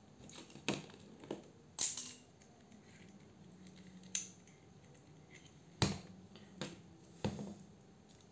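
Scattered clicks and knocks of a 12V cordless drill, its battery pack and wire test leads being handled and set down on a table, about seven in all, the loudest near six seconds in.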